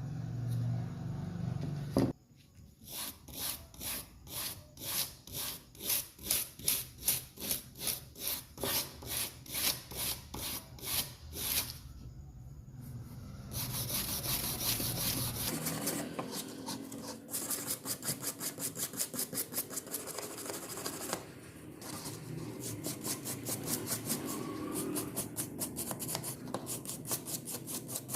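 Rust being scrubbed off an old pocket knife by hand with an abrasive, in even back-and-forth rubbing strokes. The strokes come about twice a second at first, then after a short pause and hiss they speed up to about three or four a second. A low hum and a sharp click come before the strokes begin.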